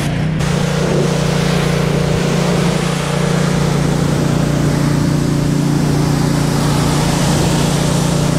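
Pressure washer running steadily: a constant motor hum under the hiss of the high-pressure water jet spraying against the side of a pickup truck.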